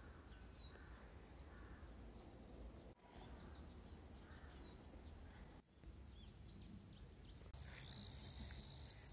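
Faint outdoor ambience: scattered small bird chirps over a low wind rumble, with a steady high insect drone coming in near the end.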